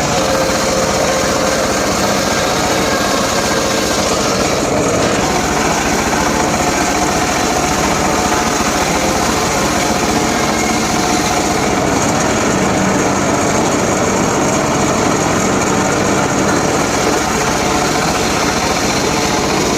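Small engine-driven saw running steadily without a break, a dense, continuous mechanical din as it works through mahogany.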